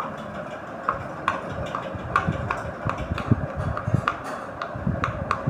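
Silicone pop-it fidget toy bubbles being pressed, an irregular series of small pops with a dull thump under each, about two or three a second, over a steady hiss.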